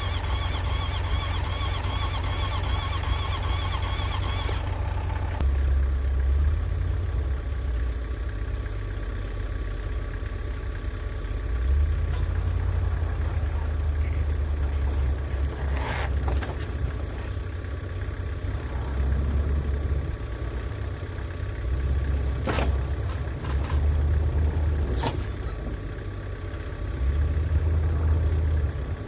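Kubota M7060 tractor's diesel engine running, its low rumble swelling and easing every few seconds as the load changes. A high wavering whine sounds over it for the first four or five seconds, then stops, and a few sharp clicks come later.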